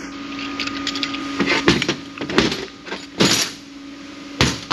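Metal transmission parts knocking and scraping as a jammed, broken part is worked loose inside a 4R75E automatic transmission during teardown. There are several separate sharp knocks with short scrapes between them.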